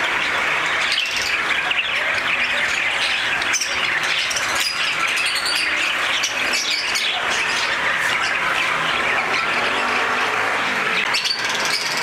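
Caged budgerigars chattering and chirping together: a steady, dense din of many overlapping calls.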